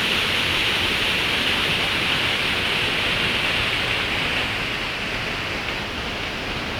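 Steady rush of falling water from the Tzaráracua waterfall, a loud even hiss of spray, easing slightly about four and a half seconds in.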